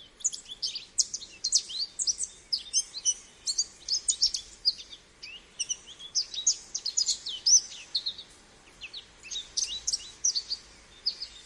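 Small birds chirping: a dense run of short, high, falling chirps, several a second.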